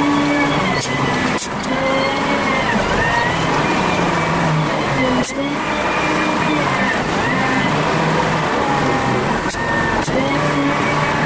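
Volvo BM 4300 wheel loader's diesel engine and hydraulics working under load while leveling dirt, sped up fivefold. The engine note rises and falls every second or two, with a few sharp clicks.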